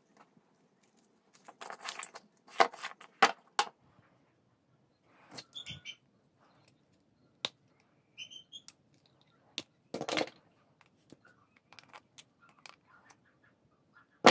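Disposable vapes being taken apart by hand and with small tools: scattered clicks, taps and crinkling of thin metal casing and plastic, with a couple of brief high squeaks about the middle.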